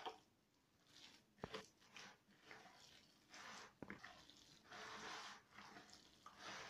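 Faint wet squelching of hands kneading a soft mixture of grated zucchini and minced chicken in a plastic bowl, coming in irregular bursts, with a couple of sharp clicks.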